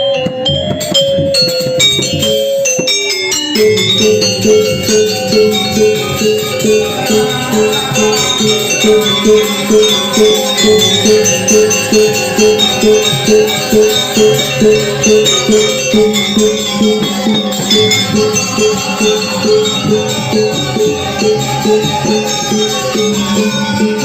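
Instrumental music. From about three seconds in it settles into a steady pulse of quick repeated notes, about three a second.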